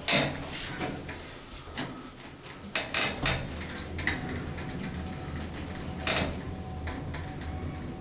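Traction lift with its original motors travelling down: a steady low hum, with sharp clicks and clunks at the start, at about two and three seconds in, and again around six seconds.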